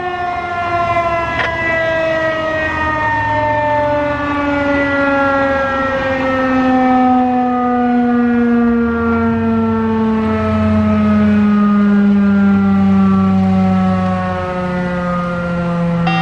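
Federal Signal 2001-130 electromechanical outdoor warning siren winding down at the end of a short alert blast, its pitch falling slowly and steadily as the rotor coasts to a stop.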